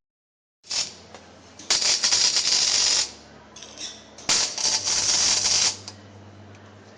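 A saw cutting through the steel rollbar tube in two rattly bursts of about a second and a half each, with a shorter one at the start, over a faint shop hum.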